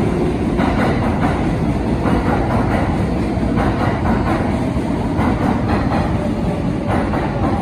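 R188 subway cars of a 7 train arriving along the platform: a steady rumble of steel wheels on rail, with scattered clacks as the wheels pass over rail joints.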